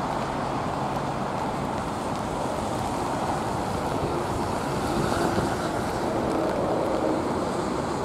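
Twin-engine jet airliner on short final, flaring just above the runway, its engines heard as a steady rush that swells slightly about five seconds in, mixed with storm wind on the microphone.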